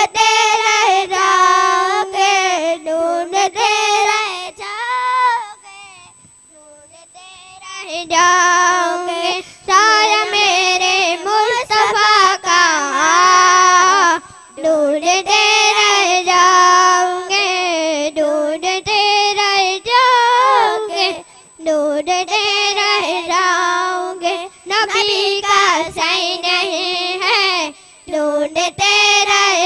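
A young girl singing a naat, an Islamic devotional song, solo and unaccompanied into a handheld microphone, with long ornamented held notes. She pauses for about two seconds some six seconds in.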